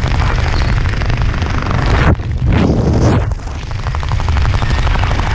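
Wind buffeting an action camera's microphone during a parachute descent under canopy: a loud, continuous rumble that surges and eases several times.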